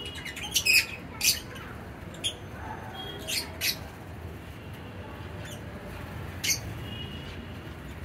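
Lovebirds in a colony giving short, shrill squawks. There are several quick calls in the first second and a half, a pair about halfway through, and one more near three-quarters of the way.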